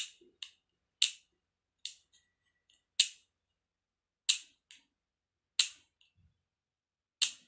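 Philips Series 3000 beard trimmer's length-setting dial being turned notch by notch: about nine sharp plastic clicks, spaced irregularly about a second apart.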